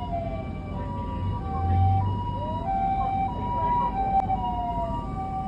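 Sirens of several emergency vehicles overlapping: a two-tone hi-lo siren steps back and forth between two pitches about twice a second, and a wailing siren glides down in pitch more than once. A low vehicle engine rumble runs underneath.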